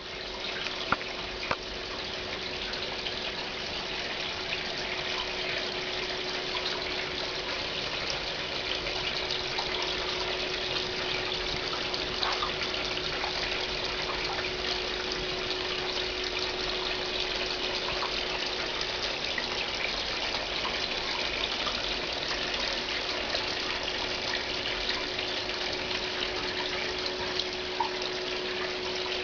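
Fireplace stove running: a steady rushing noise with a faint constant hum and a few sharp clicks, loudest about a second in.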